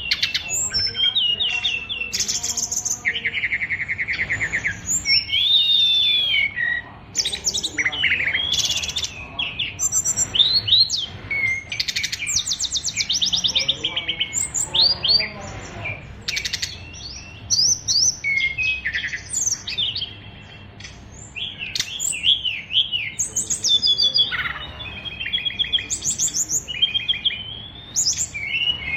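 Caged competition songbird singing a long, varied song packed with mimicked calls: fast trills, rapid strings of repeated notes and rising and falling whistles, in phrases broken by brief pauses.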